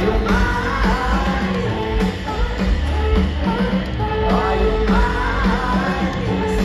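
Rock band playing live through a festival PA with a sung lead vocal over heavy bass and drums, recorded loud from within the crowd.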